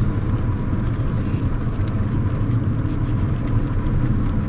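Road vehicle driving, with a steady low rumble of engine and tyres and a faint steady whine above it.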